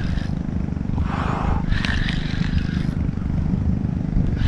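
Wind buffeting the camera microphone, a steady choppy low rumble, with a few short hissing swishes about one and two seconds in.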